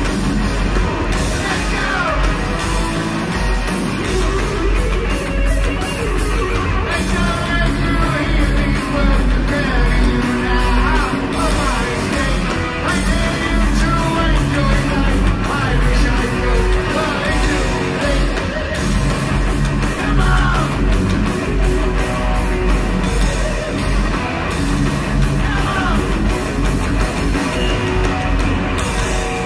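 Live heavy metal band playing loud: a lead vocalist singing and yelling over distorted electric guitar and pounding drums.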